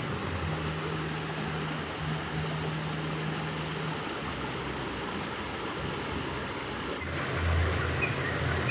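Steady rush of running stream water. A low engine hum sounds for the first few seconds, and a deeper hum near the end.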